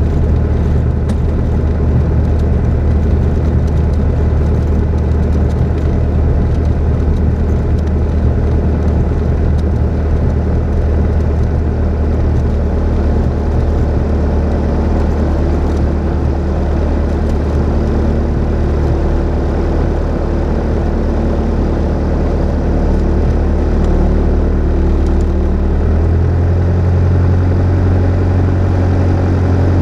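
Piper Cherokee 180's four-cylinder Lycoming engine and propeller running at low power while taxiing, a steady drone heard from inside the cockpit. The engine note steps up slightly near the end.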